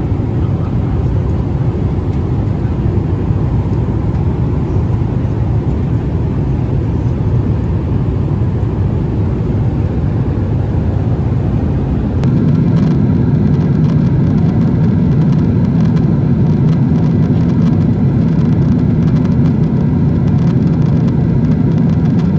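Steady low rumble of cabin noise inside a Boeing 777-300ER airliner. About halfway through it steps up louder, with a deeper, steadier hum.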